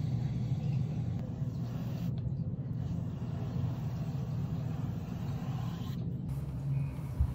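Steady low rumble of background noise, with one short thump near the end.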